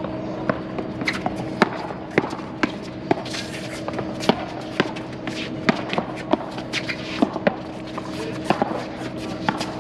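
Pop tennis rally: solid paddles striking a tennis ball again and again in a quick volley exchange, about two hits a second, with some shoe scuffs on the hard court. A steady hum of a few unchanging tones runs underneath.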